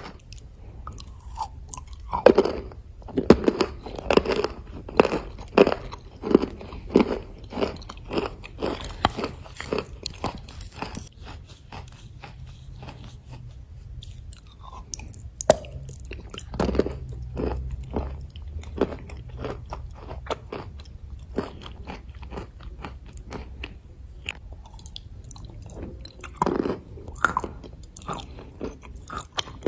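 Close-up biting and chewing of dry white Uzbek clay: a run of crisp crunches that comes thick at first, thins out midway and picks up again near the end.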